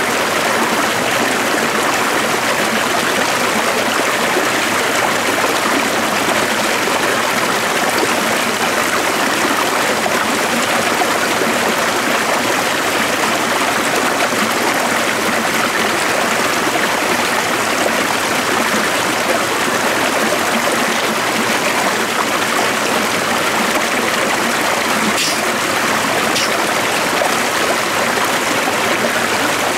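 A stream flowing: a steady, unbroken rush of water.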